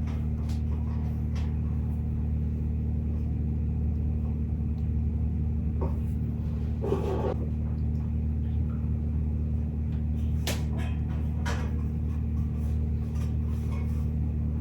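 A steady low hum with scattered light knocks and clicks of objects being handled and set down on a desk, and a softer thump about seven seconds in.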